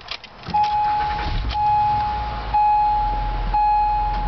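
A 2008 Acura MDX's warning chime, sounding just after the key is turned: a steady single-pitched beep that starts about half a second in and repeats about once a second, over a low rumble.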